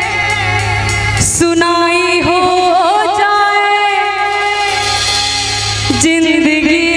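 A woman singing a Hindi devotional bhajan live, long wavering ornamented notes without clear words, over harmonium and tabla accompaniment.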